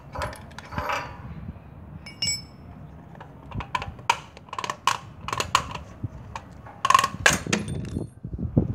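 Clicks, knocks and metal clinks of the plastic air-filter housing and carburetor being worked loose and pulled off a petrol generator's engine, with a short metallic ring about two seconds in and the loudest knocks near the end.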